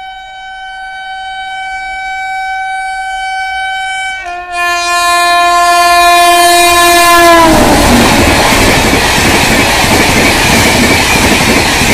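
Express train's electric locomotive sounding a long horn blast as it approaches at about 130 km/h. The horn changes note about four seconds in and drops in pitch as the locomotive passes, a few seconds later. Then comes a loud rush and clatter of the coaches going by at speed.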